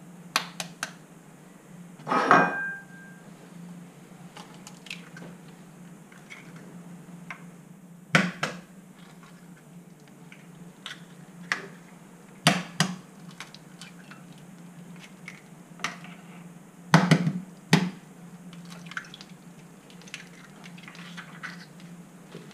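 Eggs cracked one after another on the edge of a ceramic plate and dropped in: sharp separate taps and clinks every few seconds over a steady low hum.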